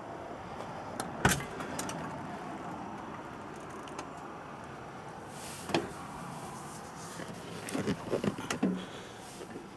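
Clicks and knocks from the Peterbilt 357's cab door and step area as someone climbs up into the cab: a sharp click about a second in, another near the middle and a run of knocks near the end, over a steady background hum.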